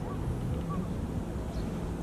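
Steady low outdoor background rumble with a few faint short chirps; the glass wind chimes are not struck.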